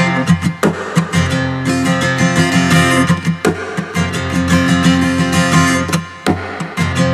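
Acoustic guitar music, strummed.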